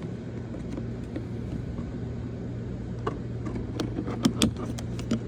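Several sharp clicks and taps, mostly in the second half, as a butter knife works at the plastic retaining clips of a car door's window-switch panel, over a steady low hum.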